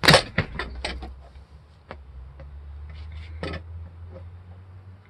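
A quick run of sharp knocks and clatter, loudest at the very start, with a few more strokes later, over a low steady hum.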